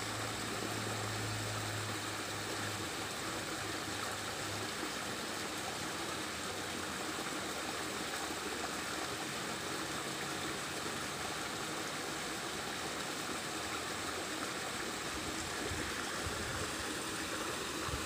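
Small muddy stream flowing, a steady rushing water sound.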